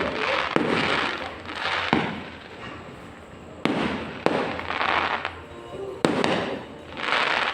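Aerial fireworks bursting: several sharp bangs a second or two apart, each followed by a crackling shower that fades away.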